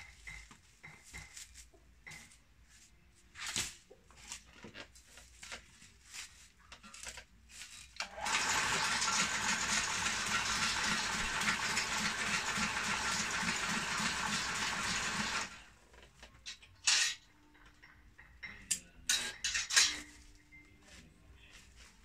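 Homemade broom-stitching machine running for about seven seconds, its electric motor and chain-driven needle bar making a steady, rapidly pulsing clatter as a straw broom head is stitched. It starts about eight seconds in and stops abruptly. Before and after come scattered clicks, knocks and rustles of the straw being handled.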